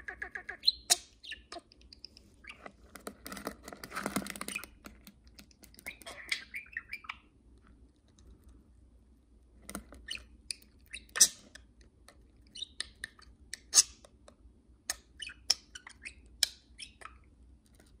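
Pet budgerigars chattering: a string of short sharp chirps and clicks, with a longer scratchy warble about three to four seconds in and a pause of about two seconds midway.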